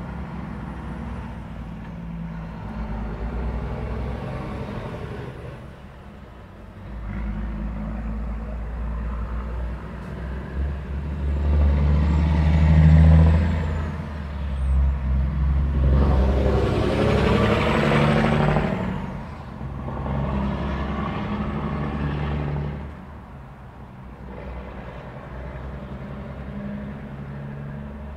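Road traffic at an intersection: vehicles passing one after another, engine rumble and tyre noise swelling and fading with each pass. The loudest, deepest pass comes about twelve seconds in, and another close pass follows from about sixteen to nineteen seconds.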